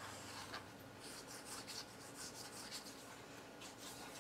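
Faint rustling and light scratching of cut cardstock pieces being handled, glued and pressed down by hand, a series of short scratchy rubs.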